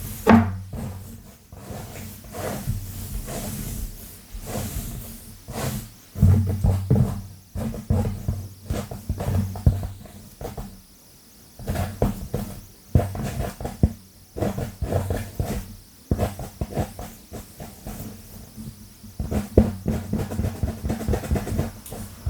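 Long nails scratching fast and hard through hair on a scalp close to the microphone, in bursts of rapid strokes with short pauses between them.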